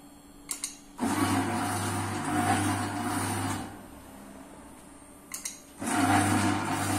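Auger powder filling machine's screw motor running in two separate runs of about two and a half seconds each, each preceded by a click. Each run is a steady mechanical hum as the dosing screw turns out a measured fill.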